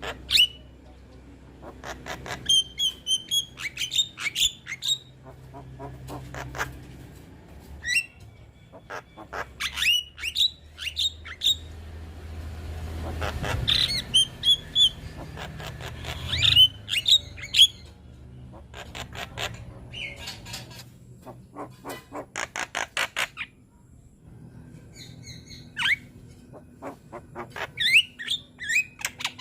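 Young Javan myna (jalak kebo) singing a busy, varied song: quick trains of sharp clicking notes mixed with short high whistles, and a harsh rasping passage about halfway through.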